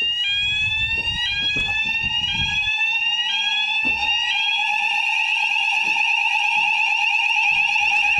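Fire alarm sounders going off during a weekly alarm test. A steady electronic tone runs under a repeating rising sweep, a little more than one sweep a second. About four seconds in, the sweep gives way to a continuous higher, fast-warbling tone.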